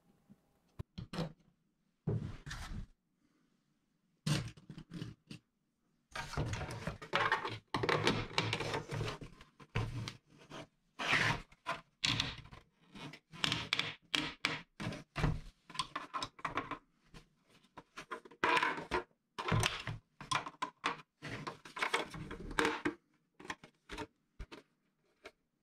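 Hard plastic parts of a cartridge display being handled: irregular clicks, knocks and scrapes as a plastic clip and cartridge are worked into the display's slot and the plastic frame is moved in its cardboard box. A few scattered clicks come first, then a busy stretch of handling noise that stops shortly before the end.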